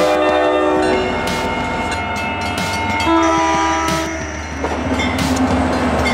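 Multi-chime air horn of an approaching NJ Transit diesel locomotive, sounded in several long blasts whose chord shifts from one blast to the next, over the low rumble of the locomotive.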